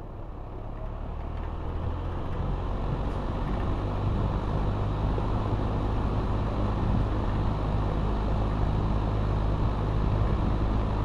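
Montgomery Ward Signature metal box fan running on high speed. It is still spinning up over the first few seconds, getting louder, then settles into a steady rush of air over a low motor hum.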